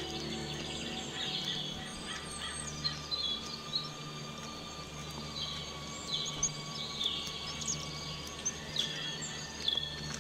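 Birds chirping and singing in quick repeated calls over ambient music that holds long, low, steady notes.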